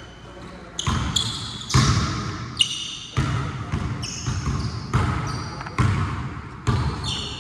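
A basketball being dribbled and bounced on a court, about one bounce a second with echo after each, mixed with brief high sneaker squeaks.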